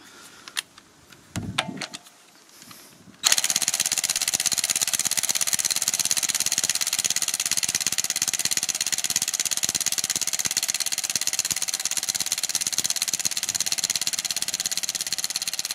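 Ryobi 18V One+ 400 Nm cordless impact wrench set to its first speed, hammering without a break on a car wheel nut tightened to 173 Nm. It is trying to break the nut loose. After a few quiet seconds of small handling clicks, the very rapid hammering starts sharply about three seconds in and keeps going.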